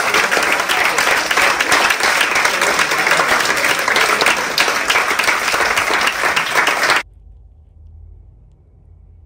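Theatre audience applauding steadily. The applause cuts off suddenly about seven seconds in, leaving only a faint low hum.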